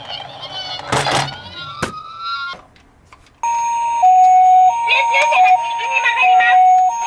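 Toy ambulances' electronic sirens: first a warbling siren with a loud burst of noise about a second in and a falling sweep, then after a brief pause the Japanese-style hi-lo "pee-po" ambulance siren, two tones alternating roughly every two-thirds of a second, with a toy voice or jingle over it.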